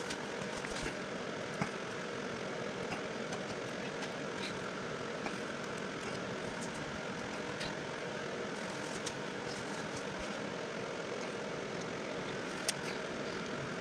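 Steady background noise with a few light clicks and taps as the metal spacer ring and legs of a plant stand are handled and fitted. The sharpest click comes near the end.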